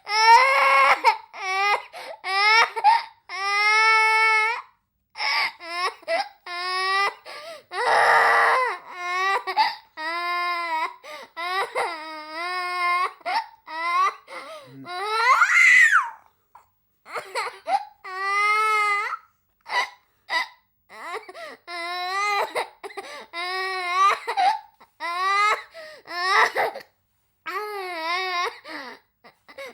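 A woman crying: high, wavering wails about a second each, broken by short gaps and sobbing gasps for breath.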